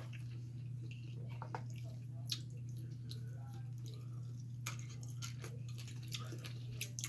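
Faint wet clicks, smacks and squishes of people eating a saucy seafood boil with their hands, pulling the meat from shells and chewing, with a few sharper clicks near the middle and near the end. A steady low hum runs underneath.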